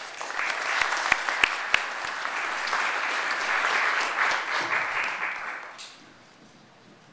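Audience applauding. A few louder single claps stand out in the first two seconds, and the applause fades out about six seconds in.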